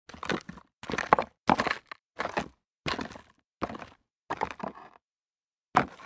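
Footsteps walking on rocks: seven evenly paced steps about 0.7 seconds apart, then a pause of under a second before another step near the end. Each step is a short cluster of stony clicks and scrapes.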